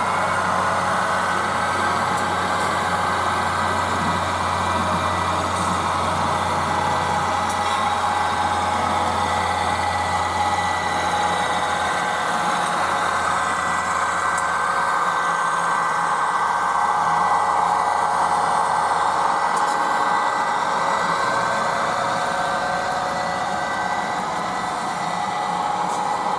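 HO-scale model train running on the layout: a steady mechanical hum with several held tones, the low part of the hum dropping away about three-quarters of the way through.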